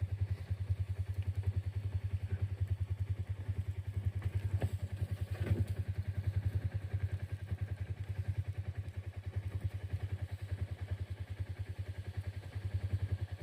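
An engine running steadily, with a fast, even chugging pulse.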